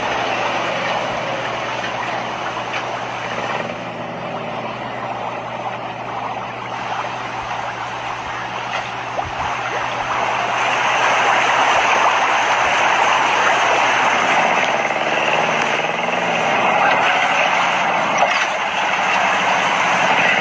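A small cargo truck's engine idling steadily under a dense, even splashing hiss from a pond crowded with fish churning the surface. The hiss grows louder about halfway through.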